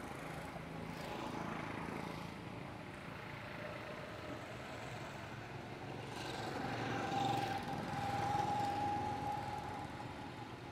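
A motor vehicle passing: its noise swells gradually to its loudest about seven to nine seconds in, with a steady whine, then fades.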